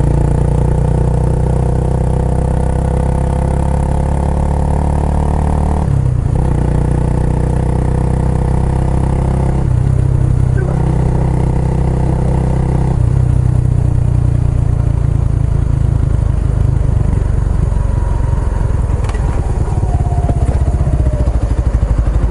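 Kawasaki Estrella's single-cylinder four-stroke engine through a Yamato aftermarket muffler, running under way with three brief gear changes in the first half. It then settles into a lower, slower pulsing beat near the end.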